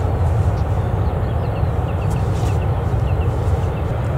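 Steady low rumble of jet airliner engines, holding level throughout.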